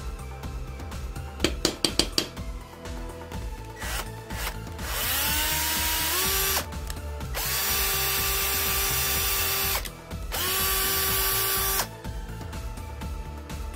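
Cordless drill with its chuck removed, run unloaded in three short bursts, each spinning up with a quickly rising whine that then holds steady before cutting off. A quick run of sharp clicks comes about a second and a half in, before the first burst.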